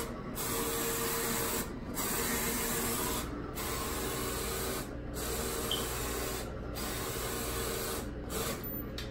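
Roland FJ-50 eco-solvent wide-format inkjet printer printing: the print-head carriage runs across the media in even passes, each broken by a brief pause about every second and a half.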